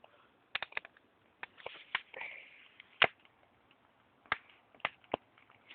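Dry wood snapping and cracking: about nine sharp, irregular snaps, the loudest about three seconds in.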